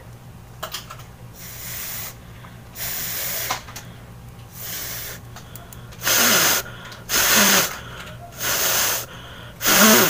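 A person breathing hard and blowing through a surgical face mask, about seven forceful breaths in a row, the later ones louder, as a test of whether any air gets through the mask.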